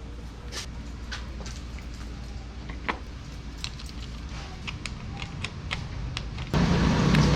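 Light metal clicks and taps of tools and small parts being handled, then about six and a half seconds in a loud steady mechanical hum starts abruptly.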